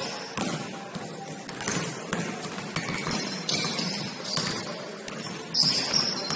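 Basketball play on a gym floor: the ball bouncing in a run of sharp knocks, with several short high sneaker squeaks, the longest near the end.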